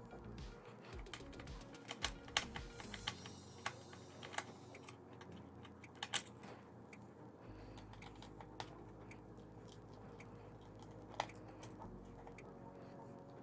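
Small screwdriver taking out the screws of a laptop's plastic chassis: scattered light clicks and taps at irregular intervals, with a few sharper clicks standing out.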